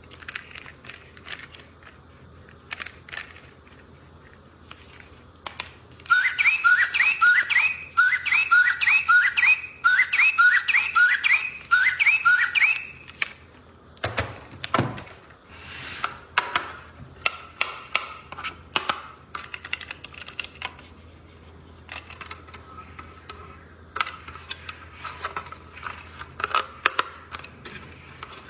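Clicks and rustles of a toy and its plastic packaging being handled during unboxing. From about six to thirteen seconds in, a loud run of short, rising, squeaky chirps comes in quick groups, then the handling clicks resume.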